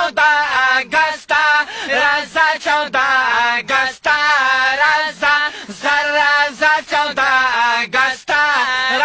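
Men singing a Pashto nazm unaccompanied, in short, rhythmic phrases.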